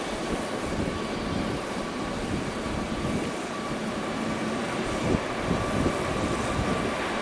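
Jet airliner engines running, a steady rumble with a steady whine over it.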